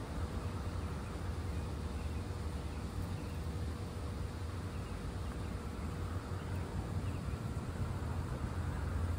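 Steady outdoor background: a low, even rumble with faint bird chirps now and then.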